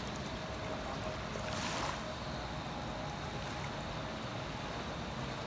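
Fast-flowing river rushing steadily over a rocky bed, with a brief louder swell of rushing about a second and a half in.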